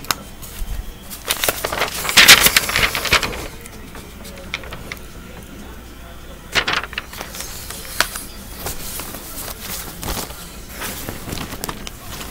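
Sheets of drawing paper rustling as they are handled and swapped, with the loudest burst of rustling about two seconds in and shorter ones later.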